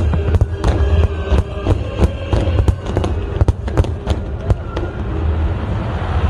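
A rapid string of fireworks bursting, several sharp bangs a second, over music playing. The bangs thin out and stop about five seconds in, leaving the music.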